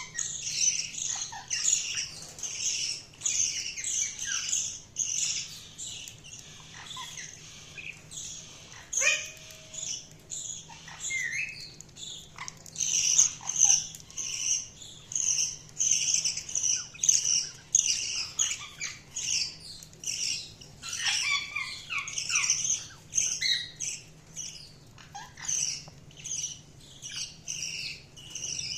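Budgerigars chirping and warbling continuously in quick short notes, with occasional squawks.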